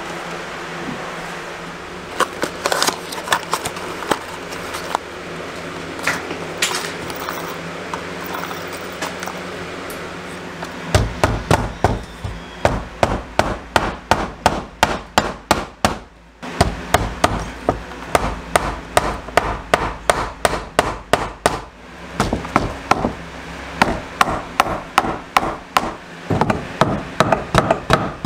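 Claw hammer nailing into a wooden wall stud while mounting a new electrical box and its cable: a few scattered taps at first, then from about eleven seconds in, rapid strokes at about three a second, with one short pause a little past the middle.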